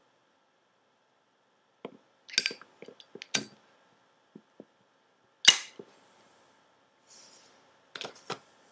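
Sharp metallic clicks and clinks from a chrome Zippo lighter being handled, in a scattered series with the loudest just past halfway.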